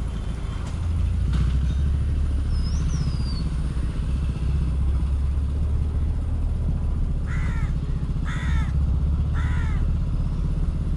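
Hero Honda motorcycle engine running steadily at cruising speed, with three loud crow caws a second apart about two-thirds of the way in and a brief whistled bird note early on.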